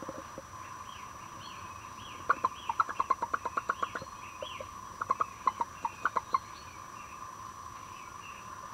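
Broody Rhode Island Red hen clucking in two quick runs of short clucks, several a second, over a steady hum.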